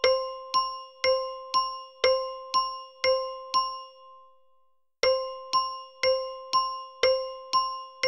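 Bell tick-tock timer: a small bell struck about twice a second, each strike ringing briefly. After about three and a half seconds the strikes stop and the last one rings away into a second of silence, then the ticking starts again.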